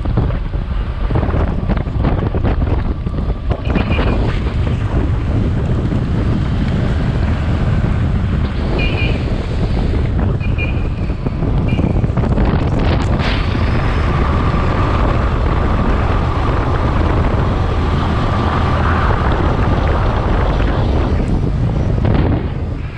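Wind rushing hard over the microphone of a moving motorcycle, with engine and road noise underneath. A few brief high chirps sound around 4, 9 and 11 seconds in.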